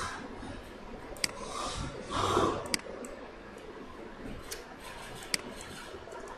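A few sharp, single clicks of a computer mouse and keyboard, three spread over several seconds, with a loud breath into the microphone about two seconds in, over faint room hiss.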